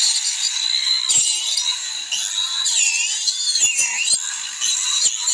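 DeWalt 20-volt cordless 4½-inch angle grinder with a toothed wood-cutting saw blade, running and cutting into a tree limb about 2½ inches thick. Its high motor whine sags in pitch several times as the blade bites into the wood, then recovers.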